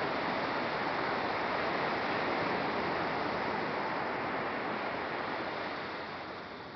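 Ocean surf washing onto a sandy beach, a steady rushing hiss that eases off a little near the end.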